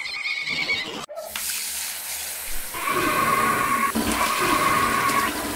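A toilet flushing with a pitched 'grrrr' growl laid over it twice in the second half. A short, high-pitched version of the growl cuts off about a second in.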